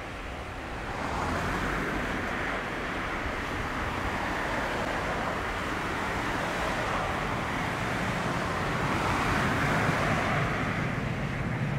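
Boeing 737-800's CFM56-7B jet engines at takeoff thrust as the airliner lifts off and climbs away: a steady rushing jet noise that swells about a second in and is loudest near the end.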